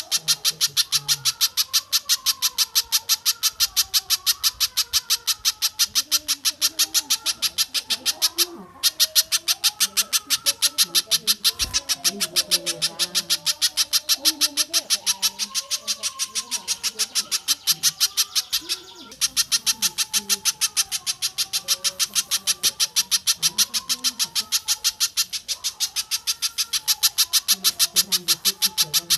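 Bird-training recording of spiderhunter and stork-billed kingfisher calls: a fast, even run of sharp high notes, broken twice by a brief pause.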